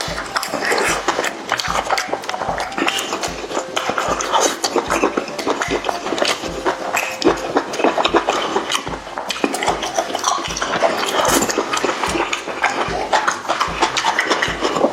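Close-miked mukbang eating of spicy chicken and chicken feet: continuous wet chewing, smacking and crunching, with the jaw working at about two chews a second.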